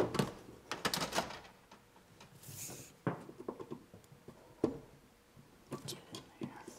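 Scattered clicks and knocks of a power cord and plug being handled and plugged in, with a brief hiss about two and a half seconds in. No motor hum: the motor does not start.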